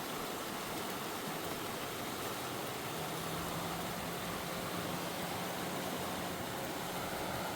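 Steady rush of a flooded, fast-running river: an even hiss of heavy water. A faint low hum joins about three seconds in.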